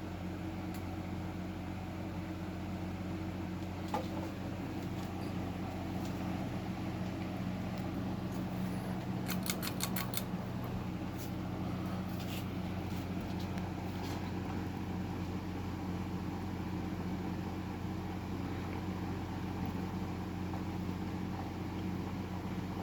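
1998 Windmere 52-inch ceiling fan running with a steady motor hum. A quick run of clicks comes about halfway through, with a few single clicks before and after.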